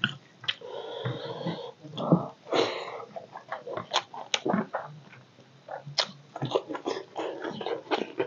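Close-miked wet eating sounds from a man chewing a mouthful of rice and curry, with many sharp lip-smacking clicks and a few longer, breathy squelching sounds.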